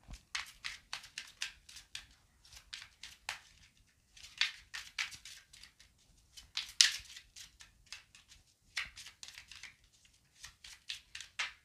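Tarot deck being shuffled by hand: several bursts of quick, crisp card clicks with short pauses between.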